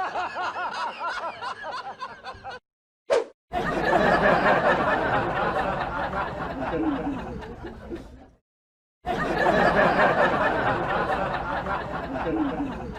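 Laughter sound effect, a stretch of laughing that plays twice with a short silence between.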